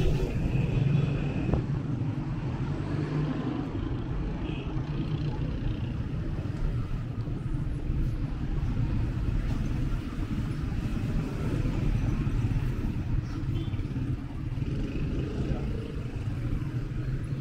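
Night street ambience heard while walking: a steady low rumble of city traffic, with faint voices of passers-by.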